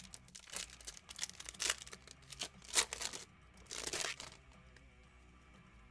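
Foil wrapper of a Panini Mosaic basketball card pack being torn open and crinkled: a string of quick rips and crackles, the sharpest about three seconds in and a longer rustle around four seconds, after which the sound dies away.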